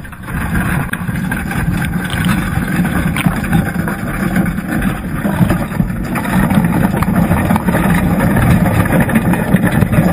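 Muffled rushing and rumbling of water heard through a GoPro's waterproof housing as the crab ring it is strapped in is hauled up from the river bottom.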